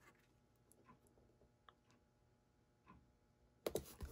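Near silence with a few faint ticks of cardstock being handled. Near the end comes a short paper rustle as a hand presses a cardstock layer flat onto a card base.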